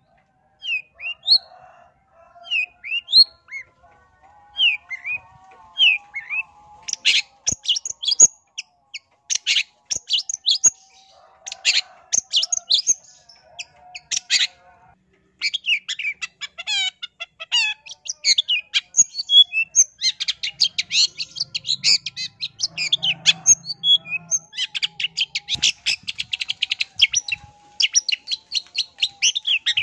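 Long-tailed shrike (pentet) singing. It starts with a few separate rising chirps, then breaks into bursts of rapid, varied chattering song that run almost without a break through the second half.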